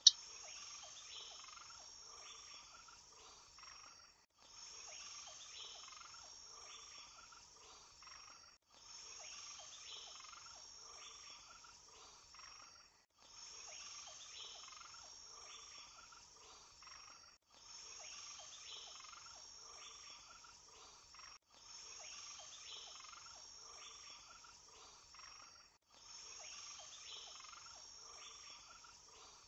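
Faint looped background track: a pattern of about four seconds, rapid pulsing under a high steady hiss, repeats over and over with a short break between repeats.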